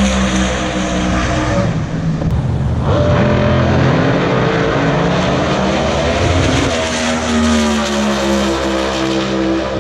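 Drag racing car engines running, with more than one engine note at a time, each pitch sliding slowly downward. The sound changes about two to three seconds in and again about seven seconds in, as a different engine note takes over.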